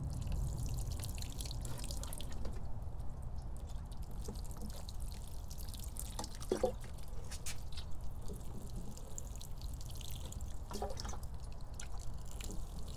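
Water pouring and dripping from a plastic watering can onto potted succulents, with small splashes and patters.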